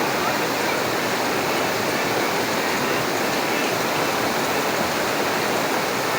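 Steady, even rushing of water, a constant hiss with no separate drops or splashes standing out.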